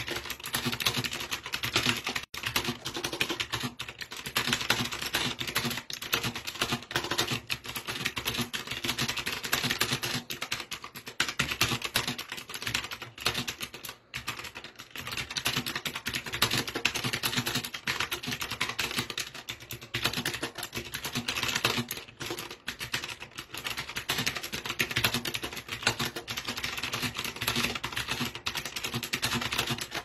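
Fast, continuous typing on a STOGA mechanical keyboard: a dense stream of key clicks. It starts sharply and breaks off briefly about two, fourteen and twenty-two seconds in.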